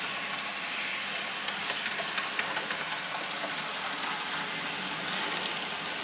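Two N-scale model trains running around the track: a steady whir from the small locomotive motors and wheels on the rails, with a few light clicks as the wheels roll over the track.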